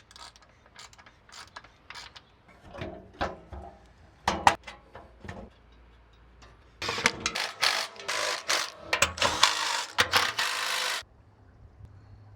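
Ratchet wrench clicking in short runs while fasteners are turned during an oil change. About seven seconds in it gives way to a louder, faster run of ratcheting that stops suddenly after about four seconds.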